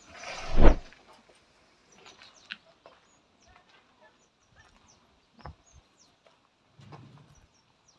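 Quiet farmyard ambience: a short loud rushing noise in the first second, then faint scattered bird chirps and a few small clicks.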